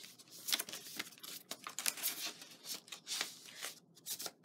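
Rustling and crinkling of craft-kit packaging as a sheet of clear stamps is lifted out and set aside: a run of short, irregular rustles.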